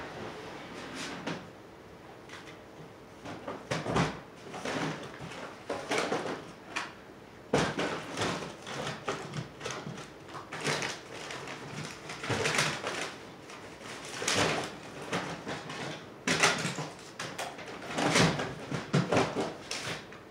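Someone rummaging through plastic storage totes: irregular rustling, clattering and knocking as items are moved about.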